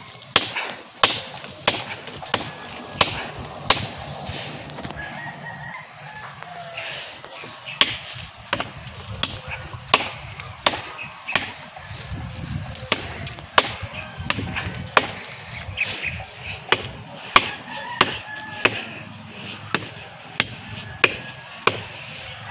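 A blade chopping by hand into a live tree trunk: sharp, evenly paced strikes about one and a half a second, with a pause of a few seconds near the start before the chopping resumes.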